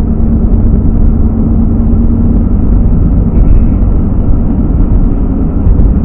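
Steady engine hum and tyre and road noise of a car driving at road speed, heard from inside the cabin.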